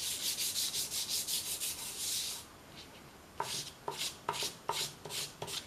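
Fingers and hand rubbing chalk pastel into paper: quick, hissy back-and-forth strokes, a short lull about two and a half seconds in, then a run of sharper, shorter strokes about every half second.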